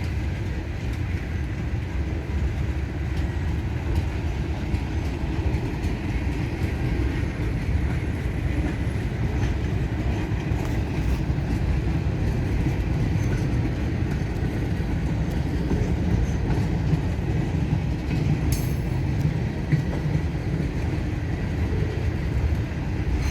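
Freight train cars rolling slowly past on a 10 mph speed restriction: a steady low rumble with faint wheel squeal and a single sharp click about three-quarters of the way through.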